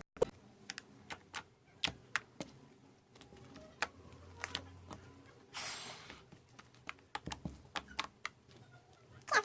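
Fluffy slime being kneaded and poked by hand, giving off irregular sharp clicks and pops, with one short airy squish a little past halfway.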